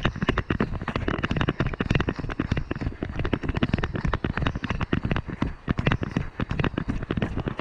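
Rapid, irregular knocking and crackling from a body-worn action camera jostled while running on a trail, mixed with footfalls.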